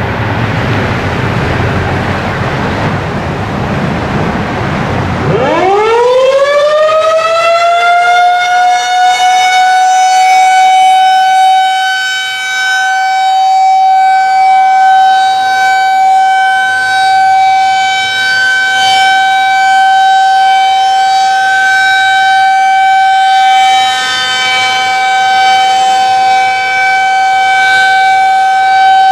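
Federal Signal 2001 SRNB rotating tornado siren sounding for its monthly test. After about five seconds of rushing noise, its tone winds up quickly and then holds a steady wail, swelling and dipping slightly in loudness.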